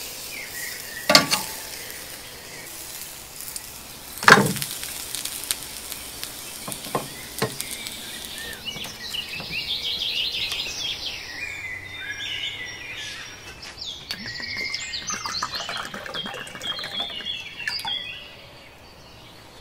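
Freshly grilled pork sizzling as it rests, with two sharp knocks in the first few seconds. Later birds chirp, and near the end water is poured from a bottle over ice cubes into a glass.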